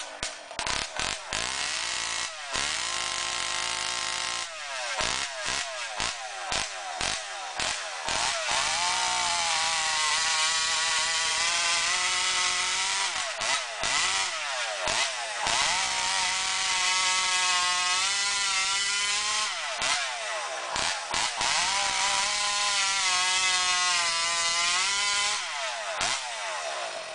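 Modified Jonsered racing chainsaw engine, revved in quick blips at first, then held at high revs for several seconds at a time, with the pitch falling and climbing again between runs before it dies away near the end.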